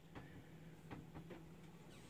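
Near silence: room tone with a faint steady low hum and a few soft clicks, the clearest about a second in.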